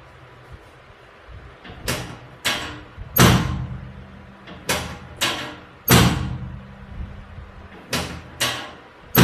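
Nine heavy thuds in three evenly spaced sets of three, each set ending on its loudest hit, every hit trailing off in a short ringing hum.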